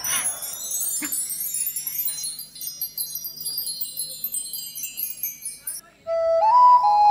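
Cascading, shimmering high chimes, wind-chime-like, ringing out and fading over about six seconds. After a brief gap, a new piece of music starts with a held, flute-like melody.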